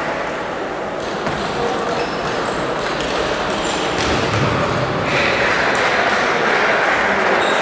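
Table tennis balls clicking off bats and the table in a rally, a few sharp ticks over a steady background of hall noise and distant voices.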